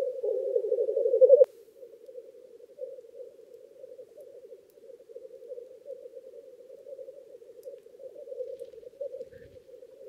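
Black grouse males bubbling (rookooing) in a continuous lek chorus, a low rolling coo. It is louder for about the first second and a half, then drops abruptly to a steadier, quieter chorus.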